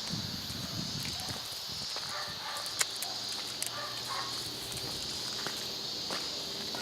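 Dog-walk footsteps and scattered light clicks over a steady high-pitched outdoor hiss, with some low rumbling in the first second or so.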